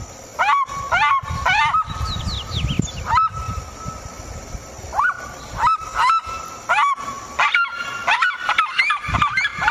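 Bird giving loud, honking calls, each rising sharply then held briefly, in quick runs of two or three, with calls overlapping more thickly near the end. A low rumble of background noise runs underneath.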